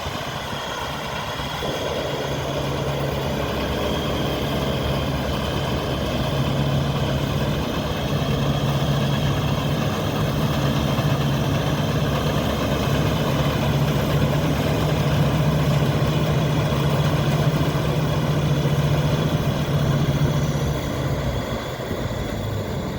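1964 Claas Matador Standard combine harvester running steadily, its engine and machinery giving a continuous low hum.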